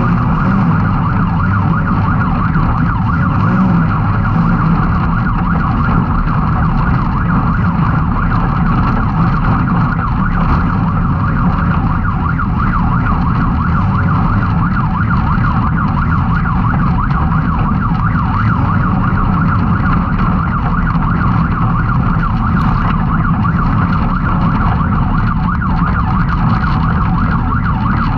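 Can-Am X3 side-by-side engine running steadily through a race run, a constant high whine over a low drone with no big changes in revs.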